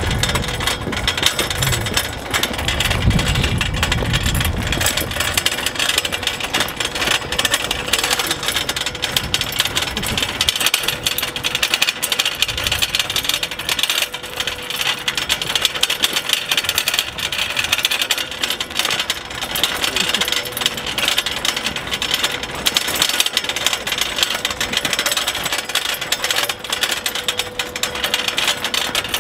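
Steel-framed two-wheeled deer cart rattling continuously as it is pulled along a road shoulder, its metal frame clattering over the rough surface.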